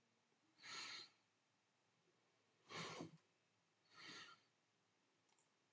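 Three soft breaths into a close microphone, each about half a second long, against near silence.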